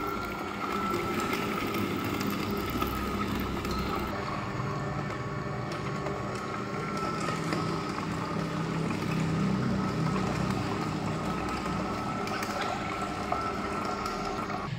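Vertical slow (masticating) juicer running, its motor and auger crushing pomegranate arils with a steady hum.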